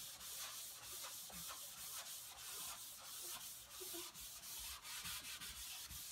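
Chalkboard being erased: faint, quick, repeated rubbing strokes across the board.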